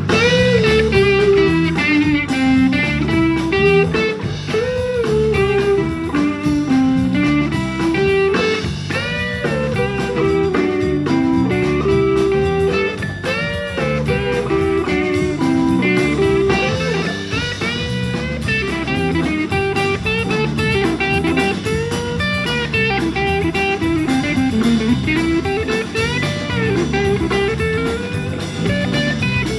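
Live blues band playing an instrumental stretch: an electric guitar solo with bent, gliding notes over drum kit and bass.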